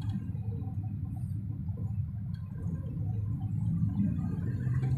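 Steady low rumble of a Hino 500 truck's diesel engine and road noise, heard inside the cab while driving.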